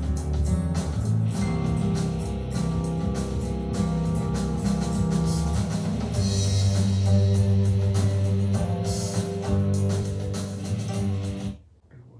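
A song with guitar, drums and heavy bass playing through a Bose portable Bluetooth speaker in a sound test. Near the end the music cuts out for about half a second and then resumes.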